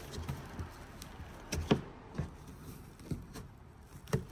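A few light plastic clicks and knocks with soft rustling: a cabin air filter being slid under the tabs of its plastic filter holder.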